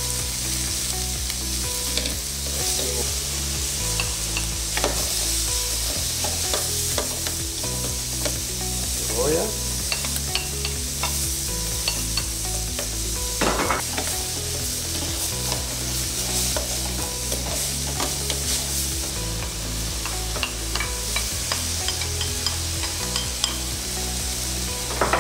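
Diced monkfish, prawns and cuttlefish sizzling in hot oil in a paella pan, stirred and scraped with a wooden spoon. Chopped onion goes into the pan about halfway through.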